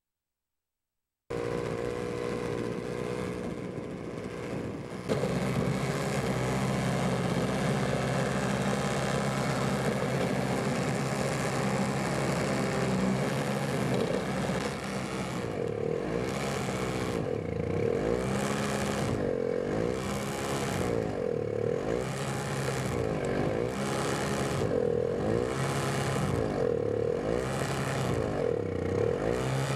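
An engine running steadily, then revving up and down over and over, about every two seconds, through the second half.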